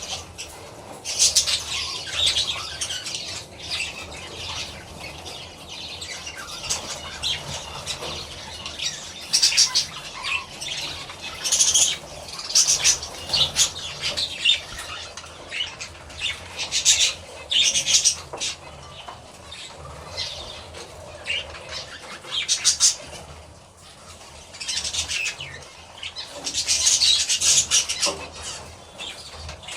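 A flock of budgerigars chattering, with repeated bursts of high-pitched calls every second or two.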